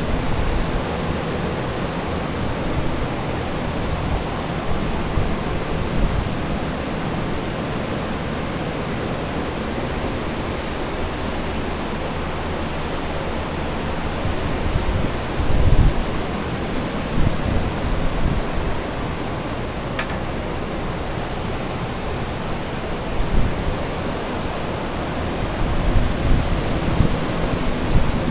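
Steady rushing noise of commercial air movers (floor drying fans) running to dry out water damage. A few low thumps break through about midway and near the end.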